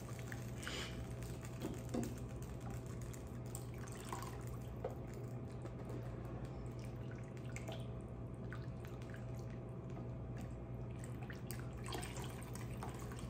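Wire whisk stirring creamy gravy in a stainless saucepan: soft wet squelching with scattered light clicks of the whisk against the pan, over a steady low hum.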